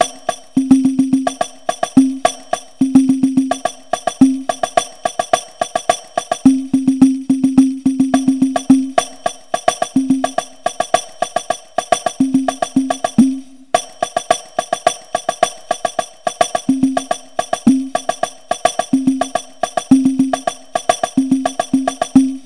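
Two hadroh frame drums (rebana) played with bare hands in two interlocking patterns, kunci A and kunci B. Deep ringing open bass strokes are mixed with quick, sharp slaps in a fast steady rhythm, with one brief break about halfway through.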